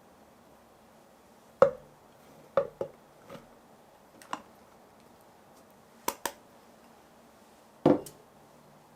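Kitchen preparation sounds: a series of separate knocks and clicks of utensils and containers being handled and set down, some coming in quick pairs, about eight in all.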